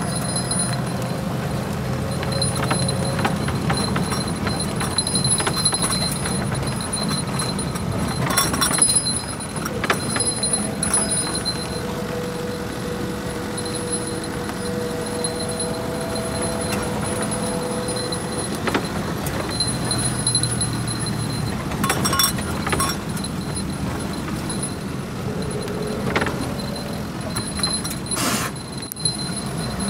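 A truck's engine drone and road noise heard from its open wooden cargo bed, with the bicycles and load rattling and knocking a few times.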